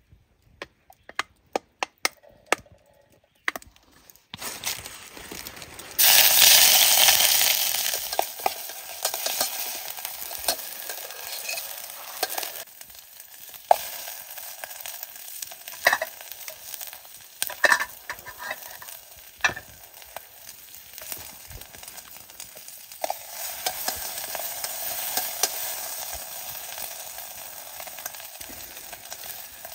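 Beef and mixed vegetables stir-frying in a hot pan. A run of sharp taps comes first, then a sudden loud sizzle about six seconds in. The sizzle goes on with scattered clinks and scrapes of stirring and swells again past the middle.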